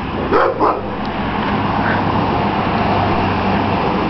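A car driving past on the street: steady tyre and engine noise lasting about three seconds, with brief voice sounds in the first second.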